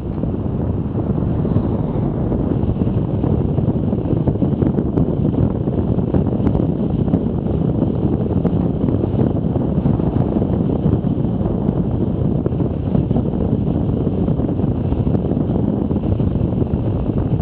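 Wind rushing over a moving camera's microphone while riding a bicycle, a steady, loud, low rumble, with a few faint clicks.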